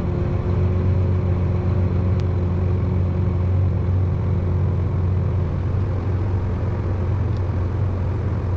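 Tractor engine and tractor-drawn peanut combine running at a steady low drone while picking peanuts.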